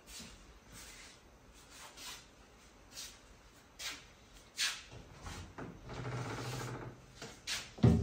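Soft rustling and light clicks as a refrigerator door is handled, with a sharper click and swish about four and a half seconds in as the door is pulled open. A low steady hum follows for a second or so, then a couple of knocks near the end.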